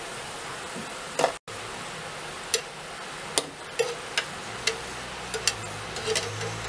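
Moong dal pakodas deep-frying in hot oil, a steady sizzle. From a couple of seconds in, a steel slotted spoon scoops them out, clinking sharply against the steel pan in a quick series of strokes.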